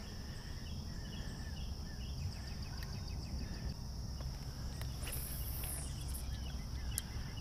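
Steady outdoor insect chorus of crickets trilling, over a low rumble, with a brief high hiss about five seconds in.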